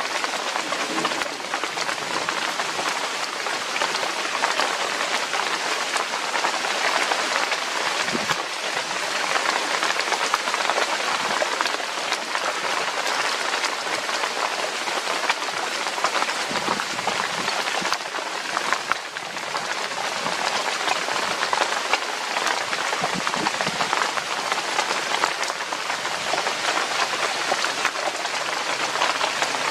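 Steady rain, a dense hiss full of small drop ticks on leaves and other surfaces.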